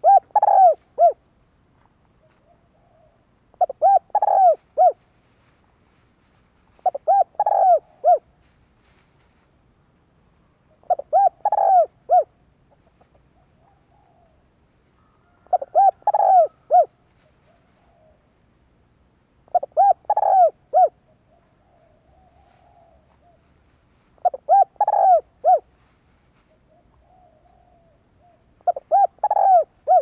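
Spotted dove cooing: a short phrase of three or four rounded coo notes, repeated eight times about every four seconds.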